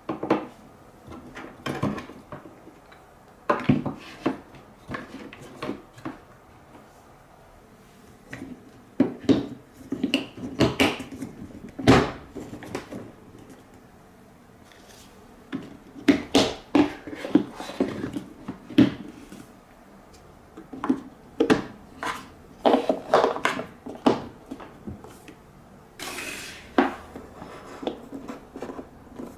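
Balls clattering down the step-like wave slopes of a TrixTrack marble run. They make irregular bursts of quick clicks and clacks, with short pauses between the bursts.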